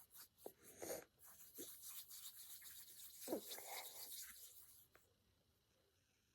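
Hands kneading and squashing Play-Doh, a faint soft rubbing and squishing with a few small clicks. It stops about five seconds in.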